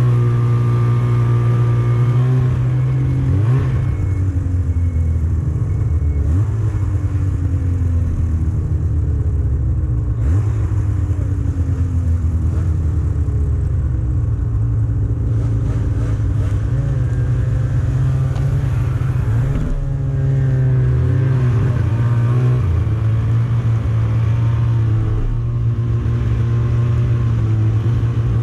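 Snowmobile engine running under way, its pitch rising and falling again and again as the throttle changes.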